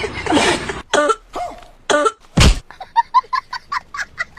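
A person coughing and clearing the throat: a rasping stretch at first, then three harsh coughs with the last the loudest, and a quick run of short, higher-pitched hacks near the end.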